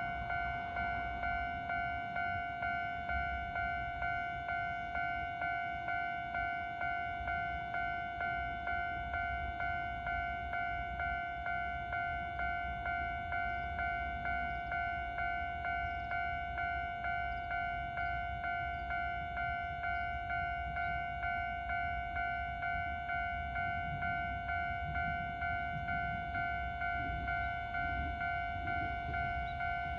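Japanese railway level crossing's electronic warning bell ringing, one pitched ding repeating evenly a bit under twice a second, the signal that a train is approaching. A low rumble builds near the end.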